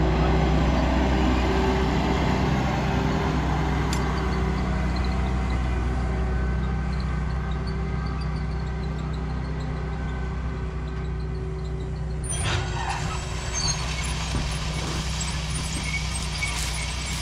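Large farm tractor's diesel engine running steadily under load as it pulls a grain drill past, slowly getting quieter as it moves away across the field.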